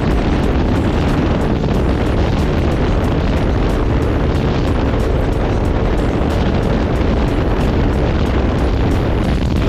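Heavy wind rumble on the microphone while riding a motorcycle, with engine and road noise underneath, loud and steady.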